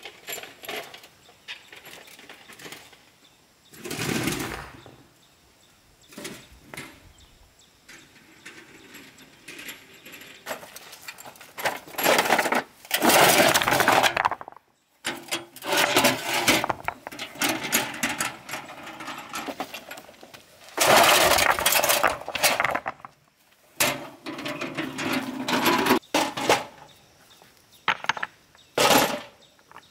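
Fieldstones clattering against each other and against the steel tray of a wheelbarrow, in repeated loud bursts with single knocks between, as stones are loaded into the barrow and tipped out. The longest rush, just before halfway, is a barrow-load of stones being dumped onto the ground.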